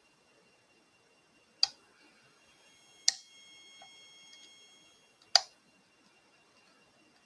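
Lock pick and tension tool working the pins of a Mul-T-Lock Integrator padlock: three sharp metallic clicks, each with a short bright ring, spaced a second or two apart.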